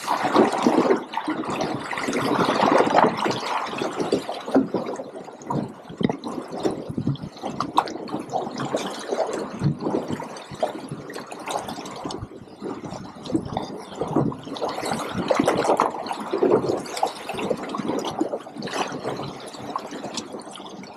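Choppy sea water sloshing and slapping against the side of a drifting boat, in uneven, irregular splashes.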